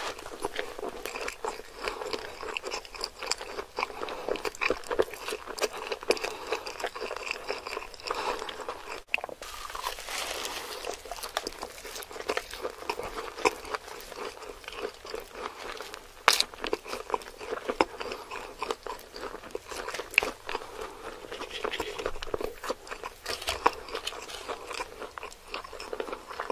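Close-miked eating of a thick burger with a toasted bun: bites and chewing, full of quick crisp crunches and crackles.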